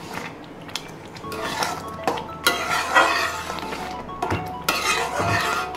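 A spatula stirring and scraping thick chutney around a pan, with clinks against the pan's side, over background music.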